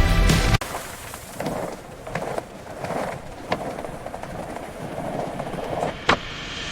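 Skateboard wheels rolling over pavement: a steady rolling rumble broken by several sharp clacks, the loudest about six seconds in. Music cuts off abruptly just after the start.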